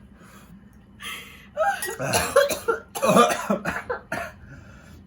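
A person coughing in several harsh fits, the last one short, set off by the burn of extremely spicy noodles.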